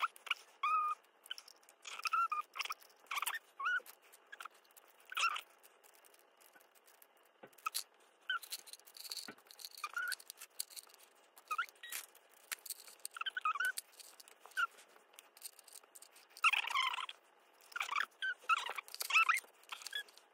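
Plastic pens and markers clicking and clattering against each other as they are picked up, sorted and dropped into pen cups, in scattered irregular clicks and rattles.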